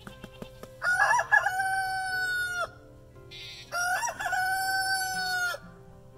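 Rooster crowing twice, each crow about two seconds long, with a short wavering start and a long held final note.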